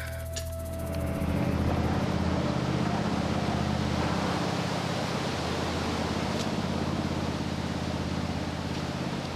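An engine running steadily with a fast, even throb. It grows louder about a second in and eases slightly near the end.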